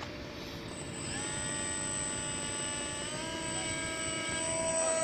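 Electric motor and propeller of a flat-foam Su-37 RC model plane spinning up ahead of a hand launch: a steady whine comes in about a second in and steps up in pitch about three seconds in as the throttle is opened further.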